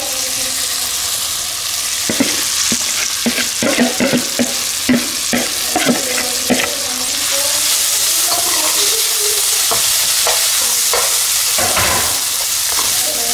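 Tomato masala sizzling in hot oil in a frying pan as boiled vegetables are tipped in and stirred. A metal slotted spoon scrapes and knocks against the pan in a flurry a couple of seconds in, and a few times again near the end.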